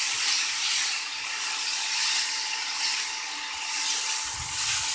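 Chicken and broccoli sizzling in a hot pan while being stirred with a spatula: a steady frying hiss that swells and dips.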